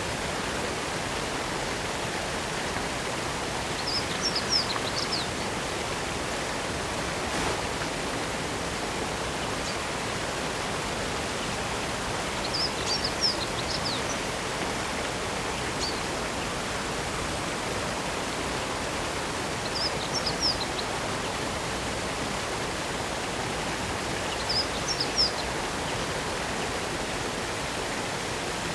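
Steady rush of a waterfall, with a bird chirping briefly about every seven or eight seconds, four times.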